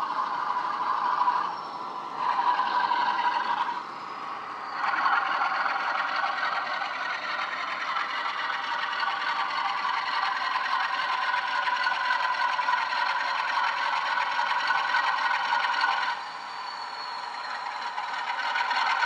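Bachmann Class 47 model locomotive's factory-fitted DCC sound decoder playing Class 47 diesel engine sound through its small onboard speaker, thin with almost no bass, along with the rattle of the model running on the track. The sound steps louder and quieter several times and drops back about three-quarters of the way through.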